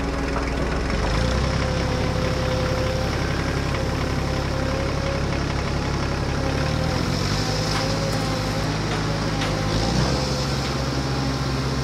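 Toy radio-controlled excavator running steadily with an engine-like hum as it moves its arm and bucket. The low drone shifts in pitch about a second in, around seven seconds in and again near ten seconds.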